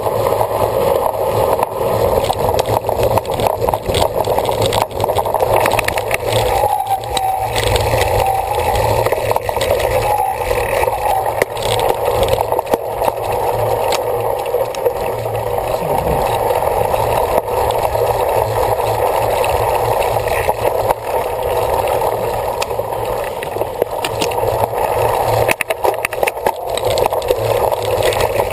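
Cyclocross bike ridden at race pace over rough ground: a steady rush of wind and tyre noise with frequent rattling and knocking from the bike.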